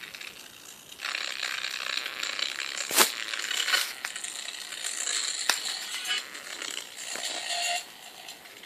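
Small alarm-clock speaker being overdriven: a harsh, crackling, rattling distortion with sharp pops about three and five and a half seconds in, cutting out briefly about a second in and again near the end. The speaker is failing under the overload.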